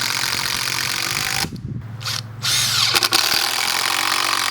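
Power drill running in two long runs, with a break of about a second partway through.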